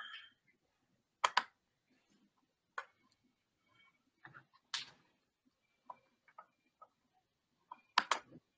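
A few irregular faint clicks and taps, the loudest a close pair about a second in and another near the end.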